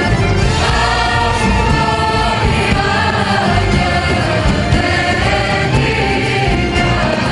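Turkish Islamic nasheed: voices singing a melody together in a choir-like sound, over steady musical accompaniment.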